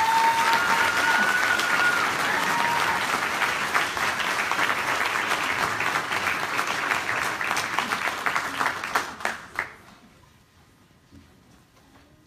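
Audience applauding, a dense crowd of clapping hands with a couple of high held cheers over it in the first few seconds. The clapping dies away about ten seconds in.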